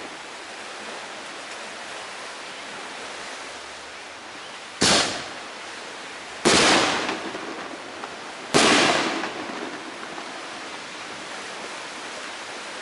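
Fireworks bursting overhead: three loud bangs about two seconds apart, each trailing off in an echoing rumble over about a second.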